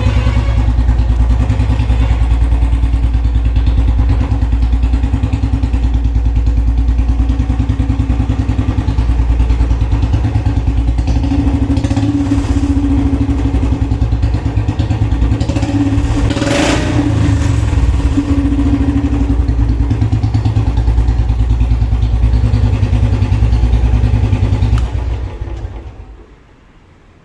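Royal Enfield Bullet 350's single-cylinder engine idling steadily through a long Punjab aftermarket silencer, with its even low thump, after a cold start. About 25 seconds in the engine is switched off and dies away.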